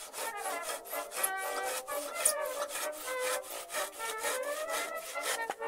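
Handsaw cutting through a wooden pallet slat in quick, even strokes, about four a second, which stop near the end. Background music plays underneath.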